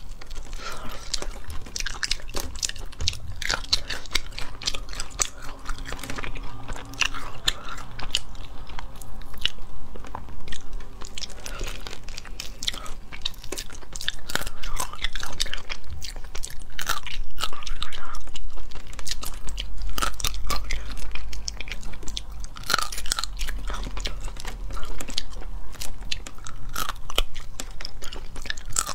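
Crayfish being eaten close to a clip-on microphone: many short, crisp crunches and bites, with chewing and mouth sounds between them.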